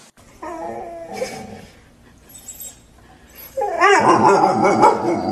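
A dog whimpering and yipping in high, wavering calls: a short bout about half a second in, then a louder, longer bout in the second half.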